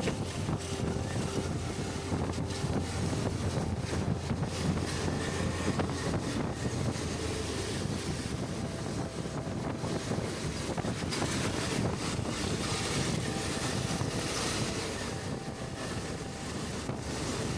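Steady wind noise on the microphone while riding a Suzuki V-Strom 650 motorcycle, with a low, even drone of engine and road underneath.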